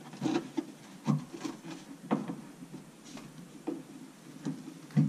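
An interior door panel being pressed and snapped into place on a 1970 Chevrolet Chevelle's door: the panel rubs and scrapes against the door, with several irregular knocks about a second apart.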